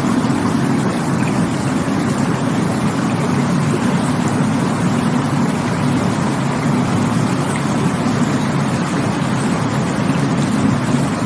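Rushing water of a stream or waterfall, a steady loud rush with a deep low rumble.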